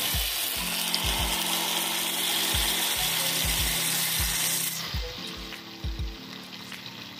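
Masala-coated pomfret frying in hot coconut oil, a dense sizzling hiss that thins out about five seconds in. Soft background music with a steady low beat plays underneath.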